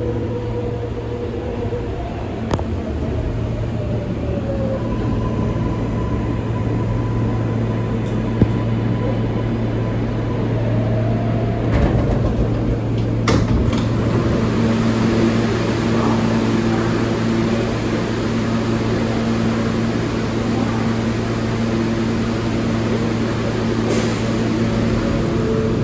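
R143 subway car running on the track, heard from inside the car: a steady rumble with a low hum and whining motor tones that shift in pitch, then settle into a steady whine about halfway through. A few sharp clicks stand out.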